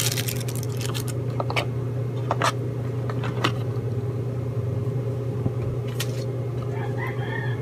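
Several sharp clicks from small plastic camera accessories and packaging being handled, over a steady low hum.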